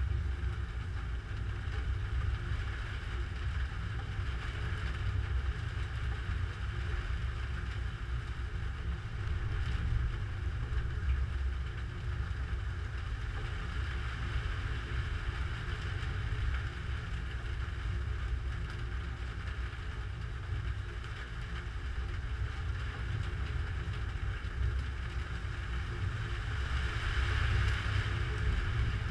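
Steady low rumble of storm wind buffeting a GoPro's microphone, with a hiss that swells near the end and no sharp thunderclaps.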